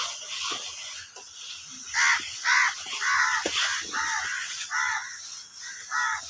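A crow cawing repeatedly, about six short caws spread over the second half, with a few faint clicks between them.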